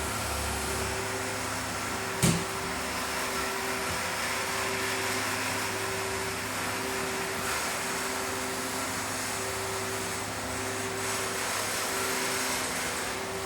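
Steady machine hum and fan-like noise, with one sharp knock about two seconds in.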